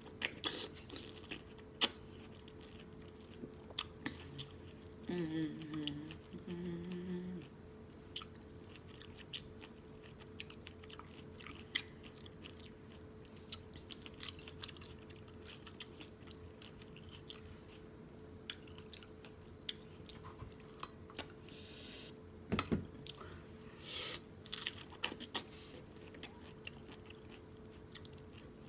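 Close-miked chewing and lip-smacking while eating strawberries with yogurt: wet mouth clicks and smacks come irregularly all through. A short hummed "mm" comes about five to seven seconds in.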